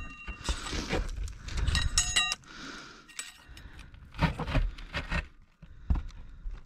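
Metal tools being handled: clinks and scrapes, a short metallic ring about two seconds in, and a run of knocks and rattles later on.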